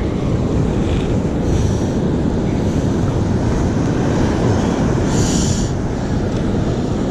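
Wind buffeting the microphone over the steady wash of ocean surf breaking on the beach, with a brief higher hiss about five seconds in.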